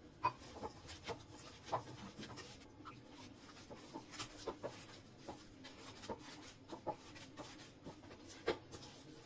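Jowar flour dough kneaded by hand in a stainless steel bowl: irregular soft pats, rubs and knocks of the dough and fingers against the steel, one to three a second, over a faint steady hum.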